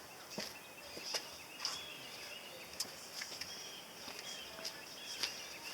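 Scattered light clicks and clinks of hand tools being handled, about one every half second to second, as a socket size is picked out. Faint bird chirps sound in the background.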